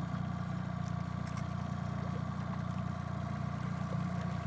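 Outboard motor running steadily at trolling speed, a low, even drone.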